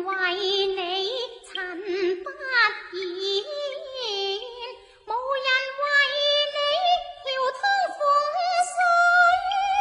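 Cantonese opera music: a single melodic line of long, wavering held notes and gliding phrases, with a short break about five seconds in.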